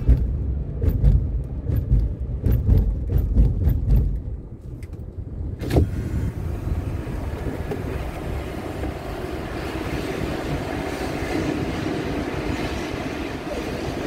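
Car noise heard from inside the cabin as the car slows into a toll-gate lane. A low road rumble with scattered clicks fades after about four seconds, a sharp click comes near the middle, and a steady hiss follows.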